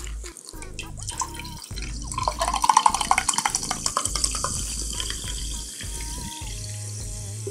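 A drink being poured from an aluminium can into a glass tumbler: a splashing, gurgling stream of liquid that grows louder about two seconds in, then goes on as a steadier hiss.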